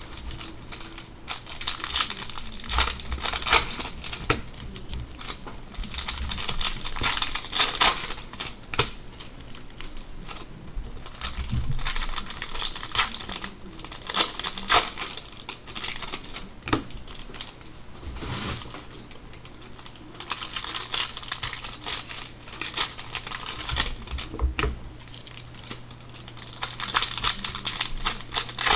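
Plastic wrappers of baseball card packs crinkling and rustling as they are handled and opened, in repeated bursts every few seconds with short clicking handling noises between them.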